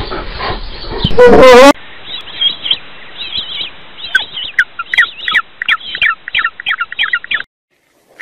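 Flock of flamingos calling: many short, squiggly high calls, several a second, that stop abruptly about seven and a half seconds in. Just before them, about a second in, comes a single loud wavering animal call.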